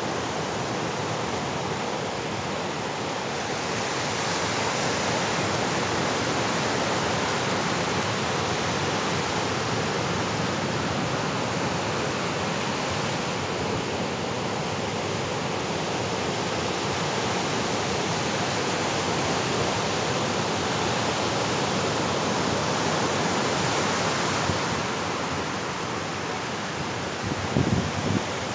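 Ocean surf breaking and washing up the beach in a steady rush, with a few brief low thumps near the end.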